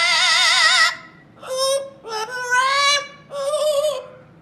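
A pet parrot singing in a human-like voice. First comes one loud, wavering note held for about a second, then three shorter notes that slide upward in pitch.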